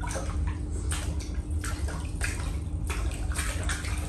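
Water splashing and sloshing in a small inflatable paddling pool as a child moves her hands through it, in short irregular splashes over a steady low hum.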